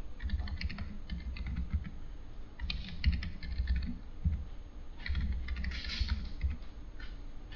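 Typing on a computer keyboard: several short runs of quick keystrokes with pauses between them.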